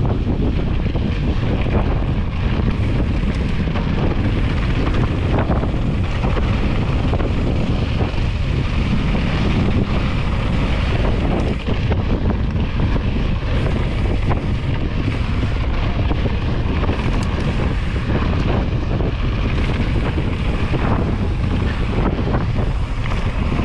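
Steady wind buffeting the microphone of a handlebar-view camera on a mountain bike riding a dirt trail, a continuous low rumble.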